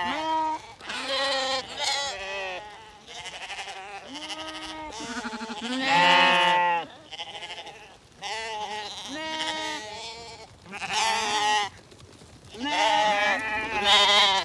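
Zwartbles lambs bleating over and over, many separate wavering calls, some overlapping, the loudest about six seconds in.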